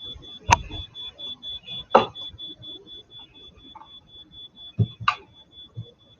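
A smoke alarm beeping in a high tone, rapid short beeps several times a second, with a few sharp knocks or clicks over it.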